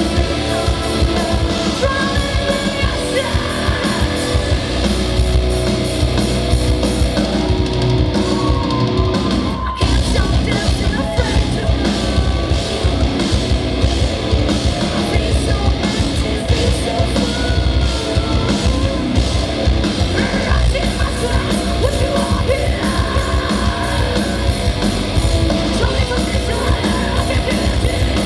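Live metal band playing loud: distorted guitars, bass and drums, with a female vocalist singing and screaming over them. There is a momentary break in the music about ten seconds in.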